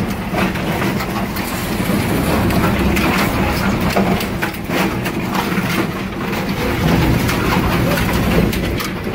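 Double-shaft shredder running, its hooked cutter discs tearing up scrap sheet metal and wire: a steady low drone from the drive, with repeated crunches and clanks of metal being torn.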